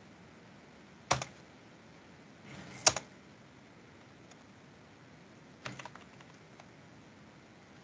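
Computer keyboard typing in short bursts of keystrokes: one group about a second in, a louder keystroke near three seconds, and a quick run of keys near six seconds.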